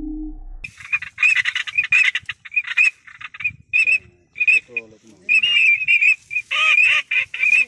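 Ducks calling: many short, high-pitched calls in quick succession, starting about a second in.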